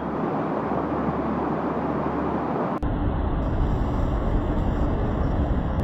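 Floodwater rushing as a steady noisy rush. About three seconds in it is cut off abruptly by a different recording with a heavy low rumble.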